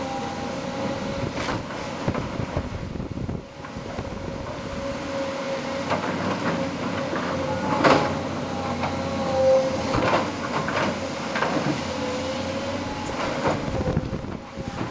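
Tracked excavators at work: diesel engines running with a steady whine that wavers in pitch, broken by several sharp clanks, the loudest about eight seconds in.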